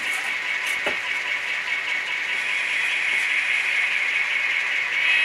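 N scale model locomotive running, a steady, loud, tinny rattling sound.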